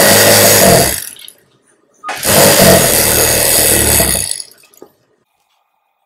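Industrial single-needle sewing machine running as it stitches a folded fabric strip. It runs in two bursts, a short one of about a second and then a longer one of about two seconds, and stops a little past four seconds in.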